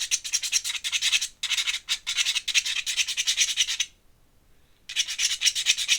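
Dip-pen nib scratching quickly back and forth on sketchbook paper, hatching in ink, several strokes a second, with a pause of about a second two-thirds of the way through.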